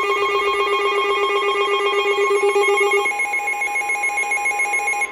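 Weather radio alert alarm: several electronic tones sounding together, pulsing rapidly like a ringing bell, marking an incoming severe thunderstorm warning. About three seconds in the lowest note drops out and the mix of tones shifts.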